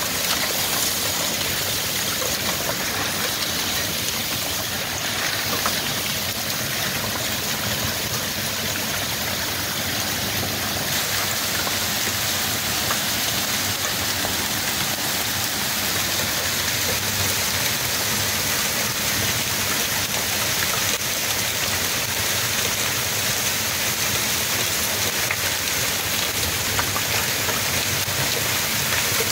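Heavy wind-driven rain pouring down in a steady, even rush.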